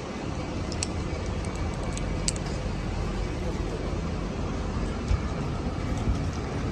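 Steady city street noise: a low rumble of passing traffic, with a few faint clicks.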